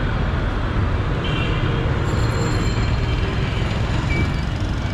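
Steady noise of busy road traffic: engines of passing motorbikes, auto-rickshaws and buses with a constant low rumble.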